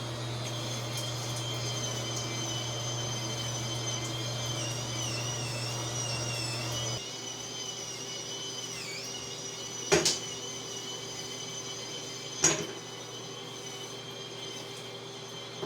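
Electric spin scrubber's motor running with a steady whine that wavers in pitch as the spinning brush is worked against a bathtub. The lower hum drops away about halfway through, and two sharp knocks come a few seconds apart near the end.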